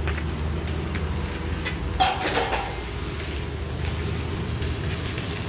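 Steady low drone of running welding equipment on a steel-frame job site, with one sharp metallic clank of steel tubing about two seconds in.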